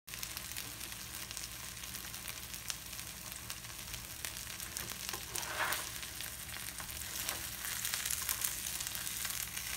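A tortilla quesadilla frying in oil in a non-stick pan: a quiet, steady sizzle with light crackles. There is a brief louder scrape about halfway through as a spatula is worked under it.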